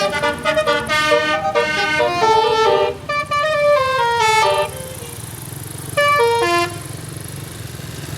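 Bus telolet horn, a multi-note musical air horn, playing a quick tune of stepped notes for about four and a half seconds, then a short second phrase about six seconds in, over the bus's steady engine hum.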